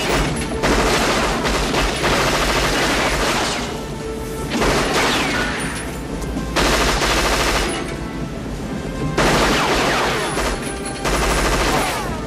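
Automatic gunfire in a series of long bursts, about five, separated by short pauses, over film score music.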